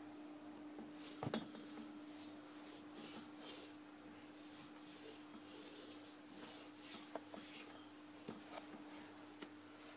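Soft rubbing and scuffing as playing cats' paws and fur brush against a hand and the phone, in two runs, about a second in and again past the six-second mark, with a few light clicks. A steady low hum runs underneath.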